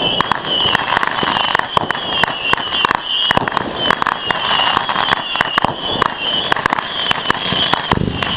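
Consumer fireworks crackling: a dense, continuous run of small sharp pops, with a wavering high-pitched tone coming and going over it.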